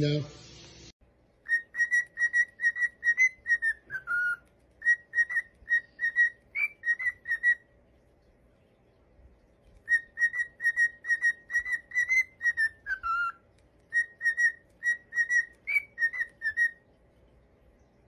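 A pet parrot whistling a tune of quick, even notes. The phrase runs twice with a pause of about two seconds between, and each run has a short falling note partway through.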